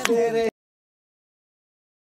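A held melodic line of music cuts off abruptly about half a second in, followed by dead silence.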